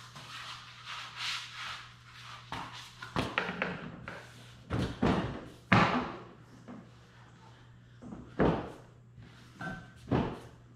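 Plastic rear diffuser being pushed and knocked into place on a Dodge Charger's rear bumper: several sharp knocks and thuds, with plastic scraping and rustling between them.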